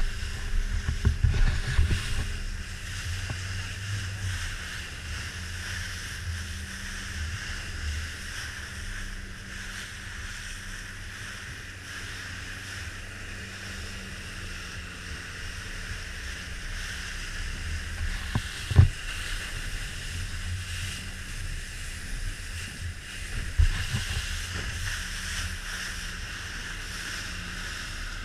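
Joker Clubman 21 rigid inflatable boat running through rough sea: a steady engine hum under a rush of water and wind. There are heavy low thumps in the first couple of seconds and two sharp knocks later on.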